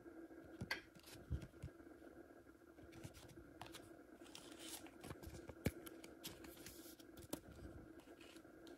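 A Pokémon trading card handled by hand: scattered light clicks, taps and soft rustles of card stock, one sharper click a little past halfway, over a faint steady hum.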